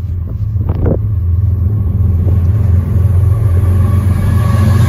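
BNSF diesel freight locomotives approaching at speed, a deep steady engine and rail rumble that grows louder as the train draws near.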